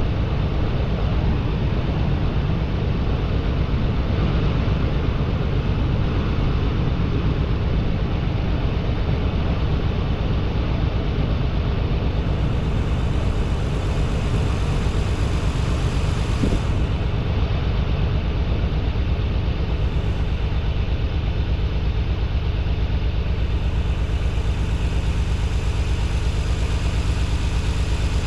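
Nissan 300ZX's 3.0-litre V6 idling steadily on freshly installed spark plugs, an idle that still has a little stumble.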